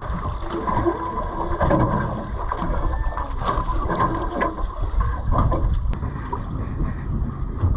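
Small fishing boat at sea: a steady low rumble of wind buffeting the microphone and water working against the hull, with scattered knocks.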